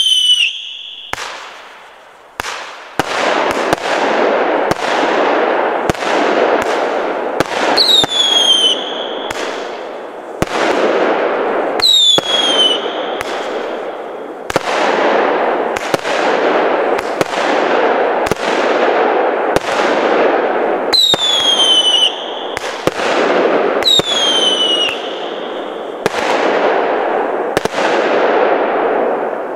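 Svea Fireworks 'Wild Cats' firework cake firing shot after shot, one every second or two, each shot followed by a second or more of noisy burst in the air. A few short whistles dropping in pitch come with some of the shots, about five in all.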